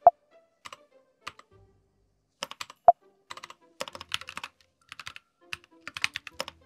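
Typing on a mechanical keyboard: quick runs of key clacks, with two sharper, louder clacks, one right at the start and one about three seconds in.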